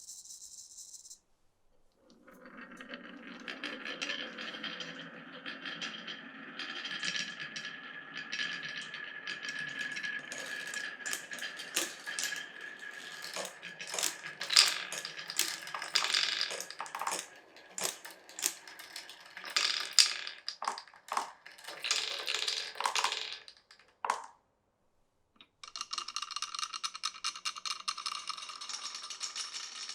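Marbles rolling and clattering through a marble run: a steady rolling sound with many sharp clicks and knocks as they drop between track pieces. After a pause of about a second near the end, a dense, even rattle starts.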